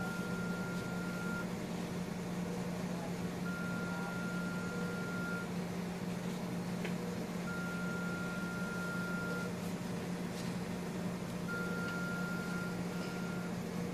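Medical equipment alarm beeping: a single high tone held about two seconds and repeated every four seconds, over a low steady hum of room equipment.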